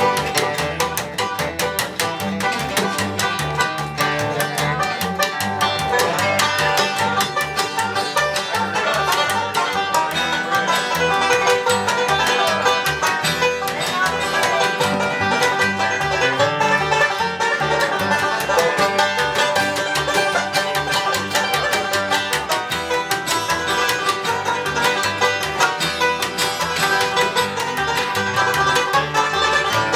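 Acoustic string band playing live: acoustic guitar and upright bass with fast, steady picking throughout.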